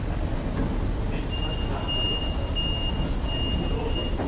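STILL forklift's engine running steadily, with its high-pitched warning beeper sounding about five times in a regular rhythm from about a second in.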